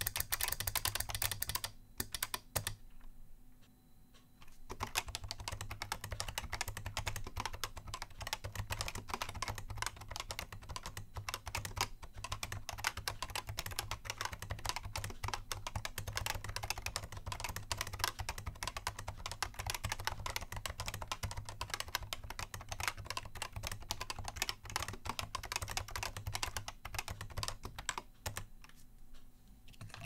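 Fast, continuous typing on the 3D-printed AHEK95 Void Keyboard, with 3D-printed Void switches and keycaps. The typing breaks off about two seconds in and starts again about five seconds in; from then on the keyboard's clicker is switched off.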